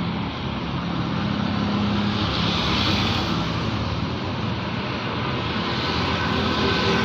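Road traffic: steady engine and tyre noise of vehicles on the road. The noise swells about three seconds in.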